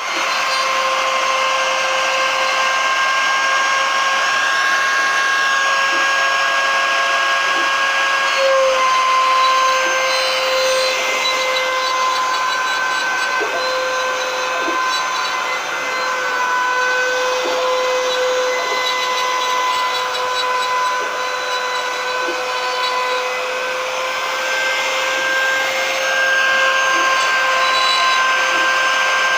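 Spindle motor of a home-built CNC router running with a steady high whine while milling. Its pitch dips slightly now and then as it takes load.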